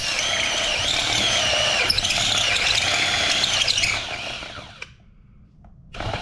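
DeWalt 20V cordless drill with a step bit cutting through a thin aluminum tube: the motor runs with a wavering high whine from the cut. It stops about five seconds in, then starts up again near the end.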